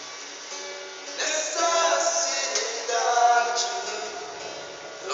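A man singing to a strummed acoustic guitar, the voice coming in strongly about a second in.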